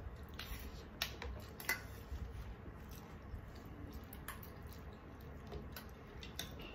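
Eating sounds: soft squishing of rice and curry mixed by hand, with several sharp clicks of a steel spoon against a steel serving bowl scattered through, over a low steady hum.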